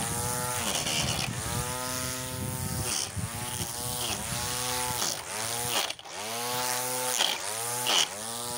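Cordless string trimmer's electric motor switched on and off several times in quick succession: each time its whine rises as the line head spins up, then falls away as it runs down.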